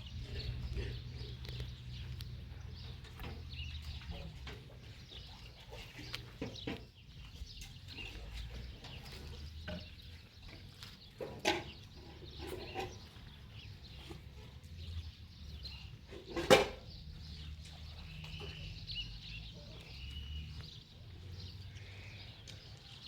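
Farm animals calling now and then, with two louder calls about eleven and sixteen seconds in. Birds chirp faintly and a steady low rumble runs underneath.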